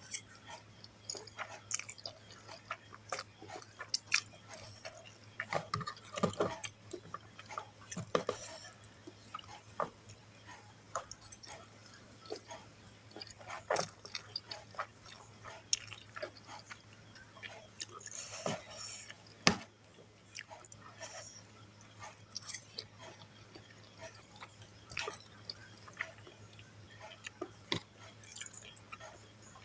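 Close-up chewing of fried instant noodles and bird's-eye chilies, with irregular wet mouth clicks and smacks over a faint steady low hum.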